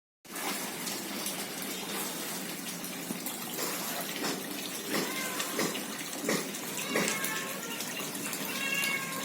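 Water running and splashing steadily into a small backyard fish pond, with short bird chirps from about halfway through.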